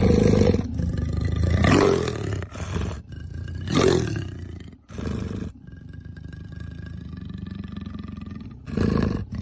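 Leopard giving a series of loud growls, about five separate ones, with a quieter stretch in the second half before a last growl near the end.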